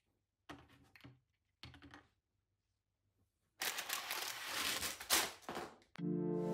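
Loose Lego pieces clicking and rattling as bags of parts are handled, in two short handfuls. From about three and a half seconds in comes a longer, louder stretch of plastic bag crinkling and pieces clattering. Music begins near the end.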